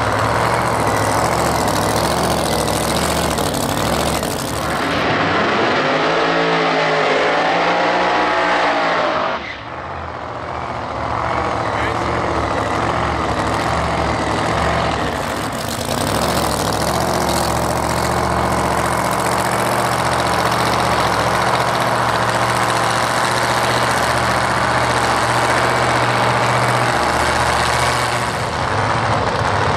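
Supercharged V8 of a blown Mustang drag car running at low revs. About six to nine seconds in, the revs rise and fall a few times; after a short dip it settles back to a steady, loud idle.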